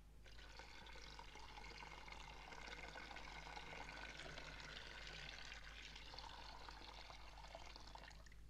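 Faint steady crackling hiss over a low constant hum, stopping shortly before the end.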